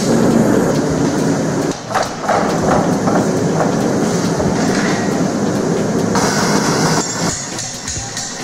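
Gas forge burner running with a loud, steady rush that eases about two seconds in, with a few metal clanks as a glowing steel bar is drawn out and handled with tongs.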